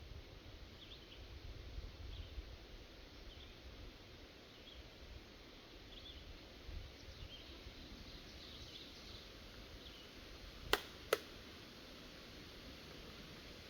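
Faint outdoor ambience: a low rumble with scattered faint high chirps. Two sharp clicks about a third of a second apart come a little before the end.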